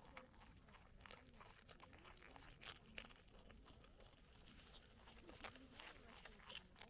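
Capybara chewing a crisp cabbage leaf close up, with irregular crunching bites.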